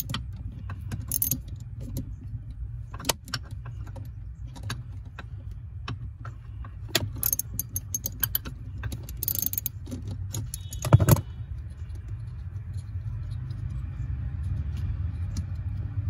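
Metal clicks and clinks of a hand tool working the 10 mm screw of a brake light switch loose under the dashboard, irregular and scattered, with one louder knock about eleven seconds in. A steady low hum runs underneath.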